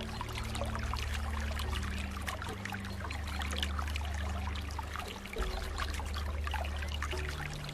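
Running water trickling and splashing in many small, quick splashes and gurgles, over a steady low rumble.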